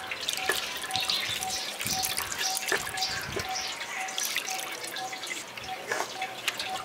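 Water splashing and dripping through fresh chhena held in a cotton cloth as the curd is rinsed with plain water to wash out the lemon sourness.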